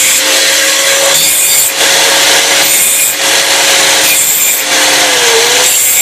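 Handheld angle grinder running, its disc grinding the ends of a steel crankpin to chamfer them so the pin presses easily into the crank web. A steady motor whine runs under the grinding hiss and dips briefly in pitch near the end as the pin bears on the disc.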